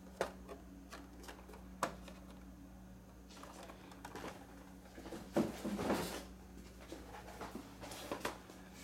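Handling of a carded action figure: scattered taps and clicks, then crinkling of the plastic blister and cardboard card as it is moved away, loudest about five to six seconds in. A faint steady low hum runs underneath.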